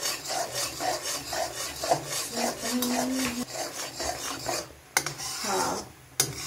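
A spatula scrapes rhythmically round an aluminium kadhai, about three strokes a second, stirring jaggery syrup at the boil so that it does not stick and burn. The scraping breaks off near the end.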